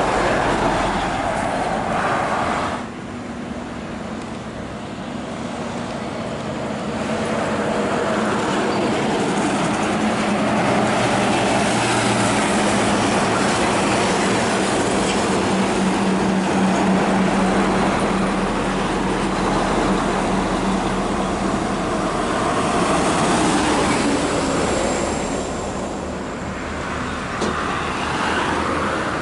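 Heavy diesel trucks hauling long multi-trailer loads passing on a highway, one after another: a steady engine drone with tyre and road rumble that swells as a truck goes by. The sound changes abruptly about three seconds in and again near the end.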